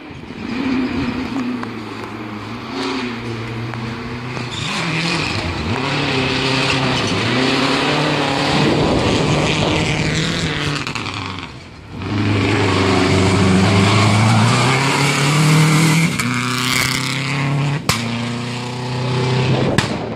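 Subaru WRX STI rally car driven hard on a gravel stage: its turbocharged flat-four engine climbs in pitch through the gears, drops at each shift, and passes by. After a break it is heard again, coming up the road and revving hard through the shifts, with one sharp crack near the end.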